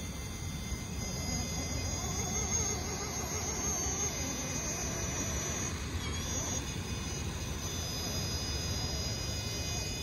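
Electric motor and gear drive of an RC rock crawler whining steadily as it creeps up a steep rock face, its pitch wavering with the throttle, over a steady low rumble.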